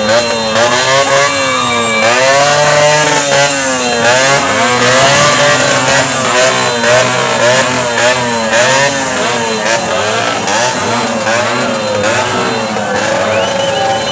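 Several small street motorcycles being revved again and again, their engine pitch rising and falling about once a second, overlapping.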